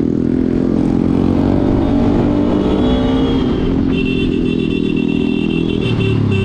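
Motorcycle engine running under way, its pitch climbing slowly over the first three seconds and then holding steady. A steady high tone sits over it from about four to six seconds in.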